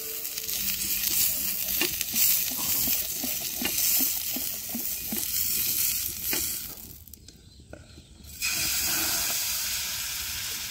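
Oil sizzling on a hot iron tawa as it is spread with a stick, with small scraping taps. The sizzle dips for about a second past the middle, then comes back steady as chakuli batter cooks on the pan.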